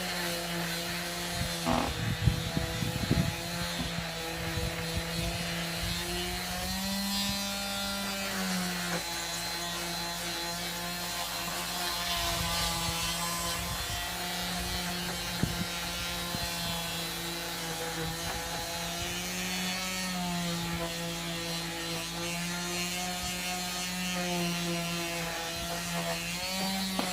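Electric disc sander running against wood, a steady motor hum under the scratchy rub of the sanding disc, its pitch rising briefly a few times as the load eases. A cluster of sharp knocks comes about two to three seconds in.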